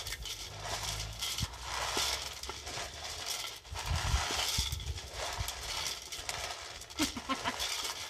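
Dry maize kernels and beans being mixed by hand in a metal cooking pot: the grains rattle and rustle against the metal in repeated sweeps, with many small clicks and a couple of low thumps.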